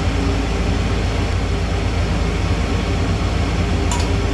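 Steady whooshing drone of a running fan, with a low hum under it, and a light click about four seconds in.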